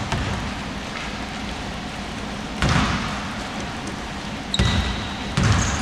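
A basketball bouncing on a hardwood gym floor: a few separate, uneven bounces, the loudest in the second half. Brief high squeaks come in near the end.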